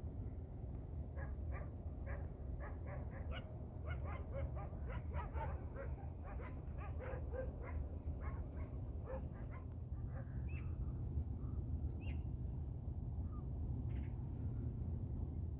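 A farm dog barking in a quick run of short yapping barks, about three a second, which stops a little past halfway. A steady low wind rumble lies under it, and a few single bird calls follow in the second half.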